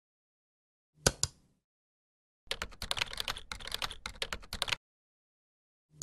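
A computer mouse clicks (press and release) about a second in. A run of keyboard typing follows for about two seconds, and another mouse click lands at the very end.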